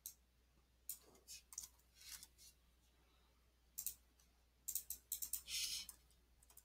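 Faint, irregular clicks of a computer keyboard and mouse, with a quicker run of taps about five seconds in.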